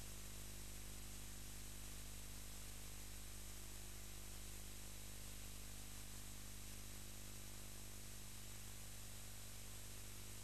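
Steady hiss with a low, even hum under it and no other sound: only the noise floor of the recording.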